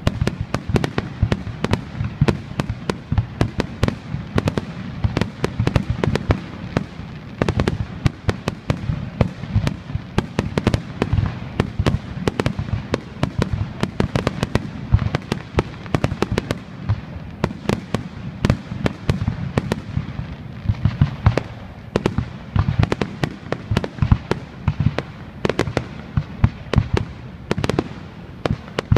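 Fireworks display: a dense, continuous barrage of sharp bangs, several each second, over a low rumble.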